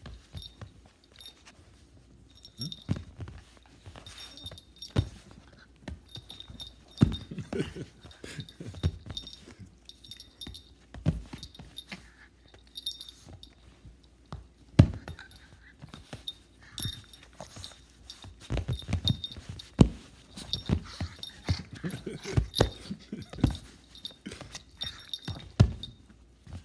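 A small dog play-fighting with a person's hand: its collar tag jingles over irregular scuffles and bumps.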